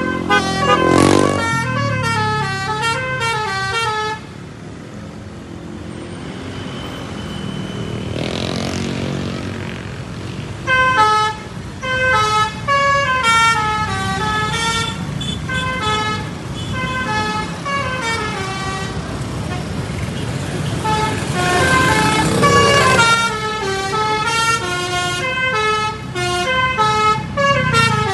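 Basuri musical bus horn (telolet) playing quick melodic runs of stepped notes. The horn stops about four seconds in and starts again about eleven seconds in, while traffic noise swells up twice.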